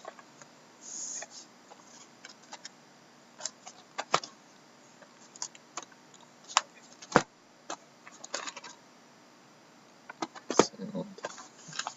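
Handling noise from sealed trading card boxes being moved about and held up: scattered clicks and taps of cardboard, with a few short rustles of plastic wrap.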